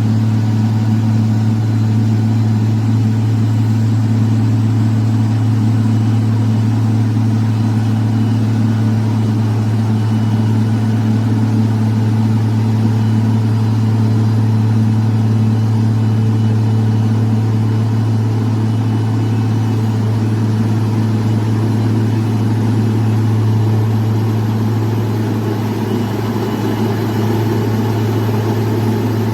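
Heavy diesel engine of road-works machinery running steadily with a deep, even hum.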